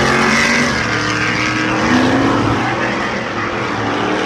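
Several Stadium Super Truck V8 racing engines running at speed, their pitch rising and falling as they rev and shift.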